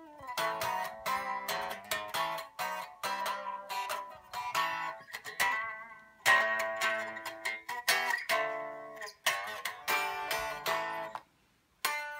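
1966 Gibson Melody Maker electric guitar being played: a run of strummed chords and picked notes, each ringing out, with a brief break near the end.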